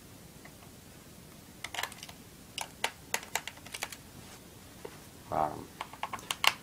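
Irregular quick clicks and taps of a small screwdriver working the screws out of an Acer laptop's plastic bottom cover, starting about a second and a half in and bunching again near the end.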